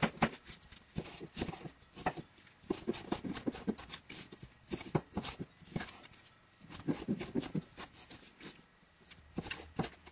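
Chef's knife chopping yellow bell pepper strips into dice on a plastic cutting board: quick, sharp knife strikes against the board, in short runs with brief pauses between.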